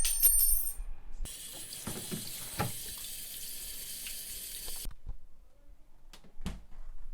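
Water running, starting about a second in and cut off suddenly near five seconds. It opens with a brief high clink and is followed by a couple of soft knocks.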